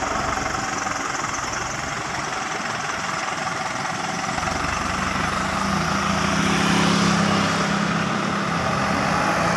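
Dump truck's diesel engine running under a full load of earth, its low engine note growing stronger and a little louder about halfway through.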